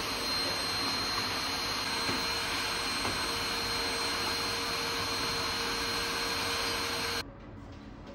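Drum-type canister vacuum cleaner running steadily as its wand is worked over a wooden floor, a steady high whine over the motor's rush; the sound stops abruptly about seven seconds in.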